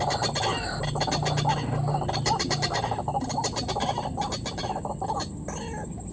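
White-breasted waterhens calling: a busy run of repeated harsh, croaking calls.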